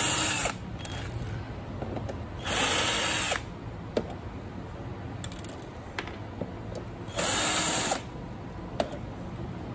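Power drill backing screws out of the top cover of a karaoke echo mixer: three short whirring bursts, each under a second, that spin up and wind down, with light clicks between them.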